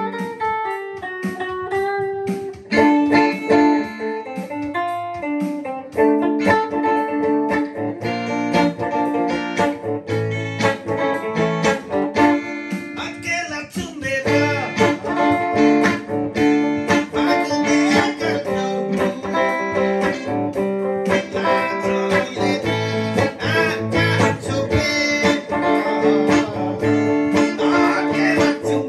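Gretsch guitar being played, picking a melody and chords with sustained, ringing notes.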